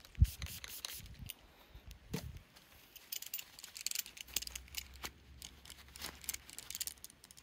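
Trigger spray bottle squirting rubbing alcohol onto metal locking pliers, with a sharp knock just after the start. A paper towel then rustles and rubs as the pliers' jaws are wiped, with scattered light clicks of the metal tool.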